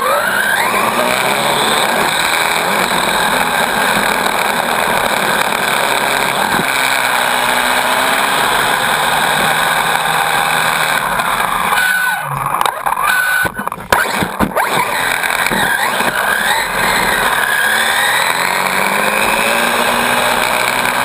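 Onboard sound of a Team Associated RC8.2e brushless electric 1/8-scale buggy racing on dirt. The motor and drivetrain whine rises and falls in pitch with the throttle, over a steady rush of tyre and track noise. A little over halfway through, the sound dips briefly and there are a few sharp knocks.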